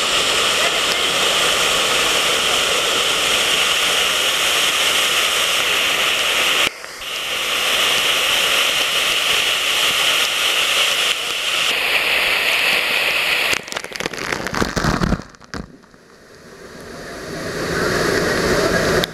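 Loud, steady rush of a waterfall's falling water and spray close by, with two abrupt breaks, about a third of the way in and again after a flurry of sharp knocks and crackle about three quarters of the way through, after which the rush builds back up.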